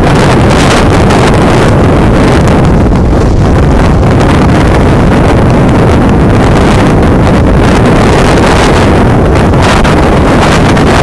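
Loud, steady wind noise buffeting a phone's microphone, mixed with the running of a vehicle driving through snow.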